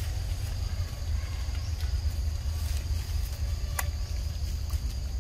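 Outdoor ambience: a continuous low rumble with a steady high insect drone over it, and a few sharp clicks, the loudest about four seconds in.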